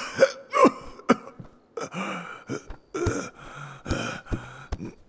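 A man's strained gasps, groans and coughs in short bursts: the laboured breathing of someone weak and struggling to move. A few soft knocks against wood come in between.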